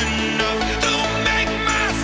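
Background electronic music with a deep bass line and synth notes, some of them falling in pitch.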